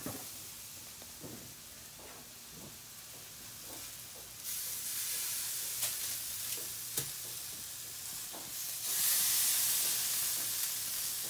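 Grilled chuck eye steaks sizzling on the hot grates of a gas grill as they are lifted off with tongs. The sizzle grows louder about halfway through and again near the end, and a couple of sharp clicks of the metal tongs against the grate or pan come in between.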